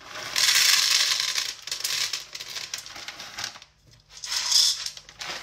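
Dried beans pouring from a crinkling plastic bag into a cooker pot: a rattling rush for about three seconds, a pause, then a shorter pour near the end.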